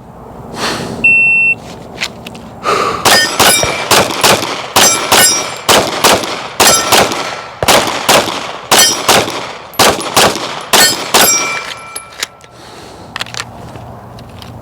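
Shot timer start beep, then a rapid string of 9mm shots from a Glock 45 pistol over about eight seconds, with steel targets ringing after some of the hits.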